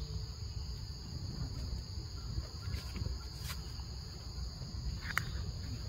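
Steady high-pitched insect chorus, typical of crickets or cicadas, over a low rumble, with a few faint clicks and one short high chirp about five seconds in.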